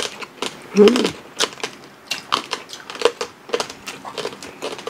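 Crispy deep-fried pork skin (lechon pata crackling) crunching and crackling in a quick, irregular series of sharp snaps as it is torn by hand and chewed. A short voiced sound comes about a second in.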